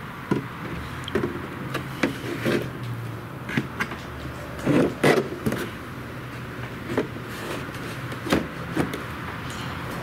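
Cockpit tub of a model jet being pushed and worked into place in its fuselage by hand: scattered knocks, taps and scrapes, the loudest pair about five seconds in.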